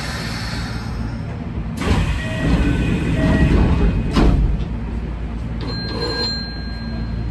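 Train's sliding passenger doors closing, with a two-note chime sounding twice as they move, ending in a knock as they shut, over the steady hum of the standing train. A short high beep follows about six seconds in.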